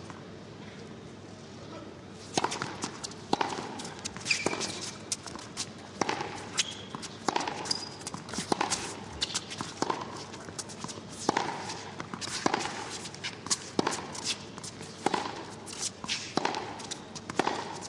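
Tennis rally: racket strikes and ball bounces about once a second, with a few short squeaks of shoes on the court. The rally starts about two seconds in, after a low crowd murmur.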